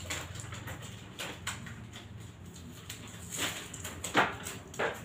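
Large paper chart rustling and crackling in several short bursts as it is handled and pulled off a stack of charts on the wall.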